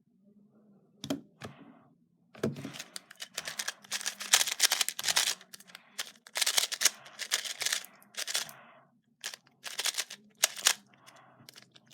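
A 2x2 speed cube being turned fast during a timed solve: bursts of rapid plastic clicking with short pauses between them. A couple of knocks come about a second in, before the turning starts.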